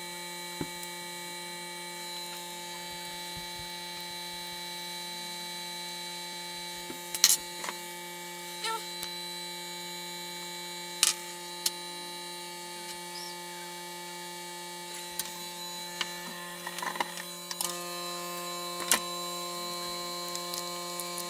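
Hot air rework station and PCB preheater running with a steady electrical hum and whine of several constant tones, broken by a few sharp light clicks of metal tools against the board.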